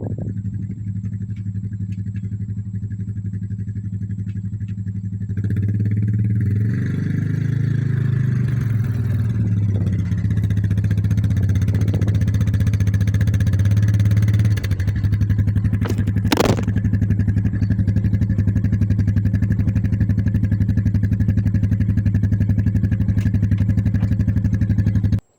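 A motor or engine running steadily with a low hum. It gets louder and hissier about five seconds in, then cuts off suddenly near the end.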